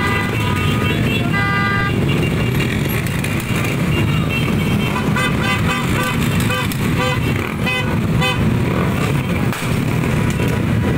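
Many motor scooter and small motorcycle engines running together in a massed group, with horns tooting: a held horn tone about a second and a half in, then a string of short toots in the middle.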